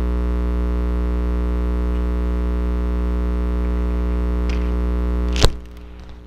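Loud, steady electrical mains hum with many buzzing overtones, typical of a ground loop or interference in the recording chain. It cuts off with a sharp click about five seconds in.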